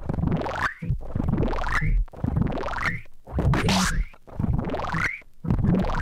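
Experimental electronic noise music played from a vinyl record: a looping pattern of rising, swooping sweeps over low thuds, about one a second, with short gaps between them.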